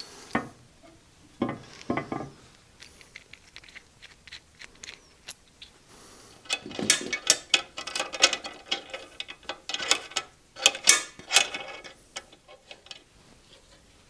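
Metal bandsaw parts clinking, clicking and knocking as they are handled and fitted during reassembly. A couple of duller knocks come in the first two seconds, and a dense run of quick clicks and clanks fills the second half.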